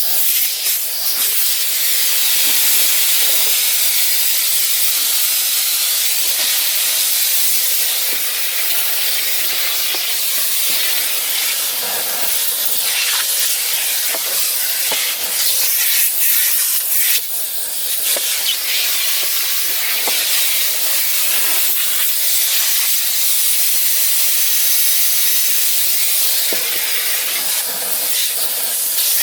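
Electrolux Ergospace canister vacuum cleaner running, air rushing through the hose and nozzle with a steady hiss, broken by occasional brief ticks and a short dip in level about seventeen seconds in.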